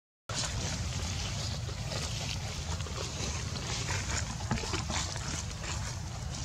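Steady low wind rumble on the microphone, with faint scattered rustles in the grass and dry leaves.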